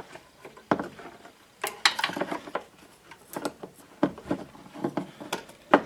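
Irregular small clicks and knocks of hand handling metal: a screwdriver being worked into the boot of a removed spark plug wire and set against the engine for a spark test.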